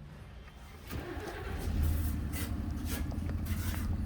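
An engine starts about a second in, then runs at a steady low hum, with scattered clicks and knocks over it.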